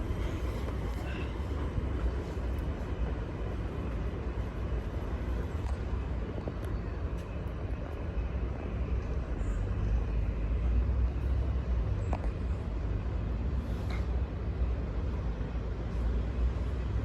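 A train running, heard as a steady low rumble with a few faint clicks, a little louder about two-thirds of the way through.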